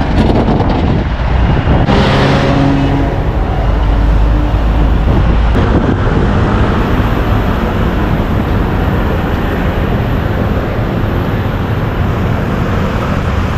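Busy city road traffic: a steady rumble of cars and buses. A bus engine passes close by about two seconds in.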